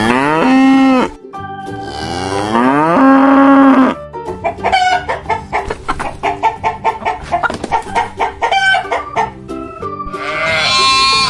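Farm animal calls in turn: two long cow moos that rise and then hold, then a run of quick hen clucks for several seconds. A sheep's bleat starts near the end.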